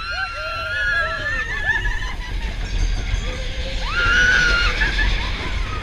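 Roller-coaster riders screaming and whooping in long, held, wavering cries, a loud one rising sharply about four seconds in, over the steady low rumble of the mine train on its track.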